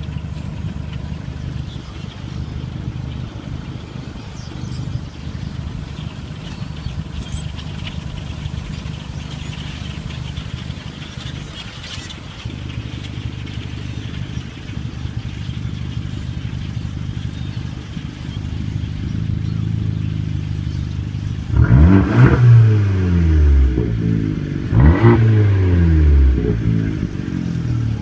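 A vehicle engine idling steadily. Near the end, two vehicles pass close by, about three seconds apart, each one louder as it comes and dropping in pitch as it goes past.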